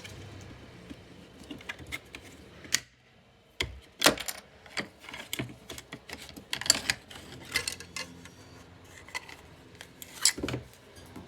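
Irregular clicks, taps and clatter of small plastic and metal parts being handled and pried apart with a flathead screwdriver while a handheld vacuum is disassembled. There is a brief lull about three seconds in.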